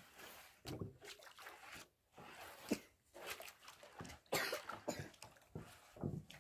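A hand sloshing and stirring watery cement mix in a rubber basin, giving a run of irregular wet swishes and slaps.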